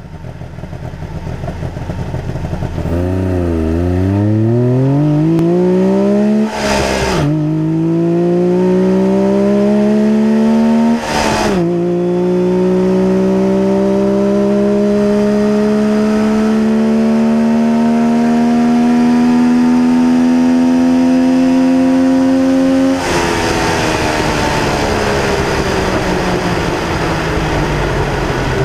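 Trabant's two-stroke engine, heard up close in the engine bay, accelerating through the gears. Its note climbs in pitch and drops sharply at two gear changes, about seven and eleven seconds in, then climbs slowly for a long stretch before turning into a rougher, noisier sound near the end.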